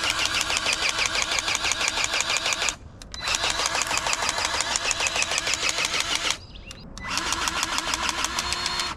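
Cordless powered grease gun pumping grease into skid steer zerk fittings, its pump clattering at about eight strokes a second. It runs in three bursts, with short pauses about three seconds in and near six and a half seconds.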